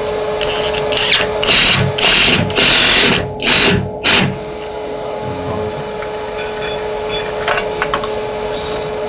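Cordless impact driver driving a screw through a plywood sheet into the CNC router bed to hold the workpiece down, in about six short bursts over some three seconds, then stopping. A steady hum runs underneath.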